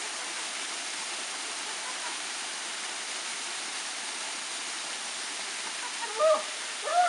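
A small waterfall: steady rush of water falling over a rock face. Near the end, two short loud calls from a person's voice stand out over it.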